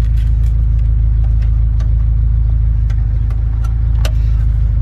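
Car engine idling steadily in neutral, a constant low rumble heard from close by, with a few light clicks and one sharper click about four seconds in.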